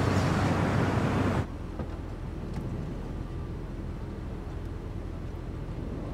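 Minivan driving: loud rushing road and wind noise cuts off abruptly about a second and a half in. It gives way to a quieter, steady low rumble of the van heard from inside the cabin.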